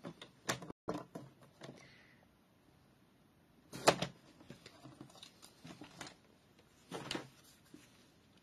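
Paper trimmer in use on cardstock: clicks and knocks of the cutting head and the card being handled, with one sharp loud click about four seconds in and a few more near the end as the trimmer is set aside.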